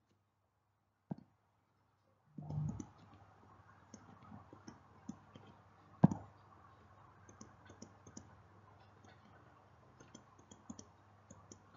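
Scattered light clicks and taps, with one sharper knock about six seconds in, over a faint steady hum. The first couple of seconds are silent apart from a single click, and a dull bump follows.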